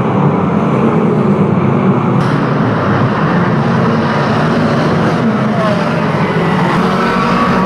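Several banger racing cars' engines running hard together as the pack races through a bend. The sound changes abruptly about two seconds in.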